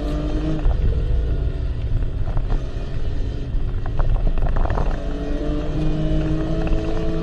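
BMW car's engine and road rumble heard from inside the cabin at highway speed, the engine note climbing gently in pitch in the last couple of seconds as the car pulls harder.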